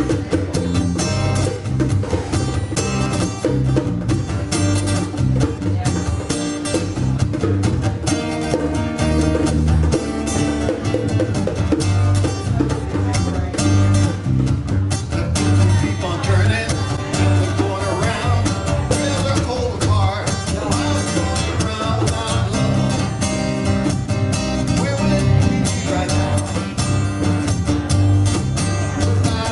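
A small live band playing: guitars over bass and drums with a steady beat.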